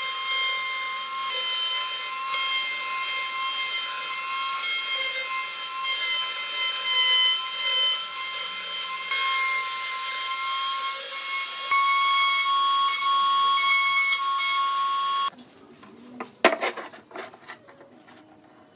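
Table-mounted router running at speed with a steady high-pitched whine and hiss as its bearing-guided trim bit cuts the inside edge of a segmented wooden ring. The whine stops abruptly about fifteen seconds in, followed by a few light knocks.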